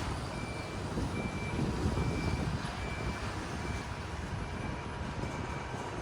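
Toshiba passenger elevator running, a steady low rumble of the moving car, with a short high beep repeating a little more than once a second.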